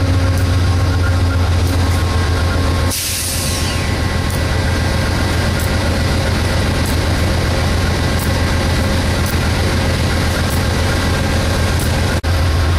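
Diesel locomotive engine running with a steady low drone, and a loud burst of air hiss about three seconds in, like an air brake release. The sound cuts out for an instant near the end.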